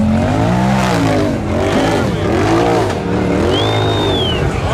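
Side-by-side UTV engine revving hard and repeatedly, the revs rising and falling about once a second as it claws up a steep muddy rock wall.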